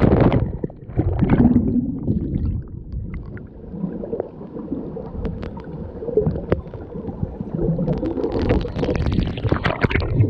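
Muffled water sloshing and gurgling close to the microphone, uneven and surging, with louder splashing near the end.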